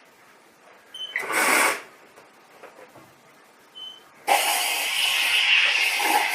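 Espresso machine hissing: a short loud burst about a second in, then a loud, steady hiss that starts about four seconds in and keeps going.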